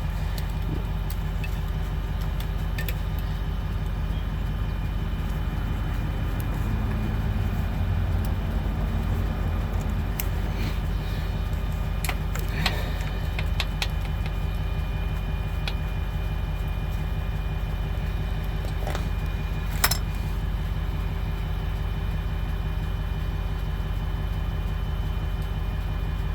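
An engine idling steadily, with scattered small metallic clicks and clinks of hand tools working on small bolts. The sharpest clicks come about twelve and twenty seconds in.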